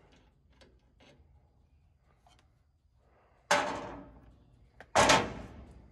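Two sharp clanks about a second and a half apart, each ringing and dying away over most of a second, after a few faint clicks: metal parts and tools being handled during the sheave work.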